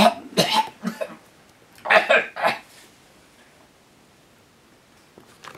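Short bursts of a person's voice in the first few seconds, then quiet room tone.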